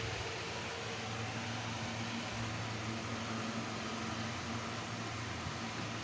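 Steady whirring hiss with a low hum, like a small fan or blower running.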